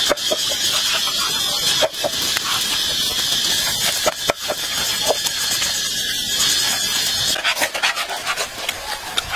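Open wood fire burning under roasting meat: a steady hiss with scattered crackles and pops, easing off near the end.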